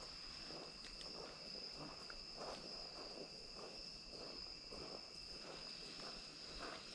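A faint, steady insect chorus, a continuous high-pitched drone, with soft irregular rustling and shuffling sounds beneath it.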